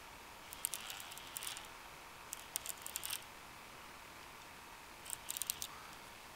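Baitcasting fishing reel clicking in three short bursts of sharp, quick ticks as a catfish is fought on a bent rod, over a steady faint hiss.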